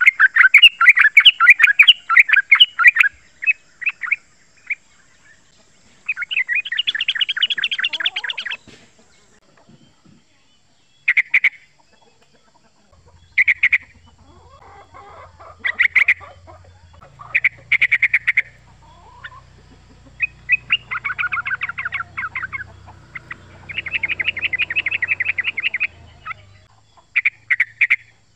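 Male yellow-vented bulbul singing its rapid, chattering call in phrases of one to three seconds separated by pauses, with a few short bursts in between.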